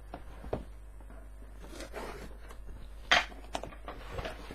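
Cardboard subscription box being opened and its contents handled: scattered knocks and handling noise, the sharpest knock about three seconds in.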